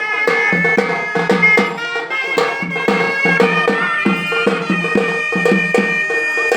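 A traditional Indian village band (baja) playing: a reedy wind instrument holds long, droning notes over a quick, steady drumbeat.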